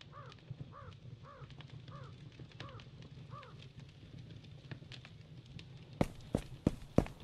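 A crow cawing six times at an even pace, each call rising and falling, over a low steady rumble and faint scattered clicks. About six seconds in, a series of loud sharp knocks begins, roughly three a second.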